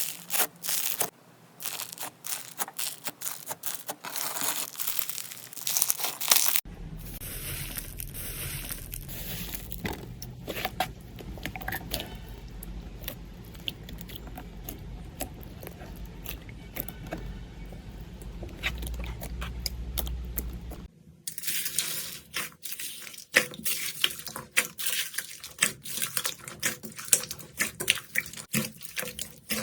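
Slime being squeezed and pressed by hand: dense crunchy crackling and popping, a softer, steadier squishing stretch from about 7 to 21 seconds in, then crackling again.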